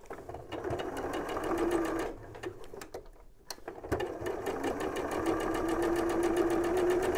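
Electric domestic sewing machine stitching patchwork pieces: it runs for about two seconds, stops, then starts again about four seconds in and runs steadily, with rapid even needle strokes over the motor hum.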